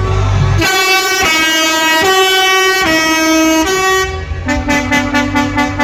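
Truck's musical air horn playing a short tune of about six stepped notes, loud, then a single lower horn note held for about a second near the end.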